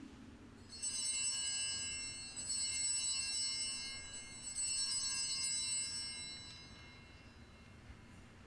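Altar bells rung three times during the elevation of the consecrated host. Each ring is a cluster of high, bright tones that carries on and slowly fades away.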